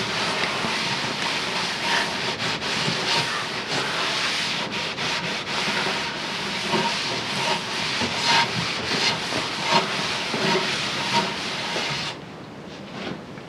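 Cloth rubbing a tung-oil-based finish into a wooden cabinet, with continuous scrubbing strokes that stop about a second before the end, leaving a few light knocks.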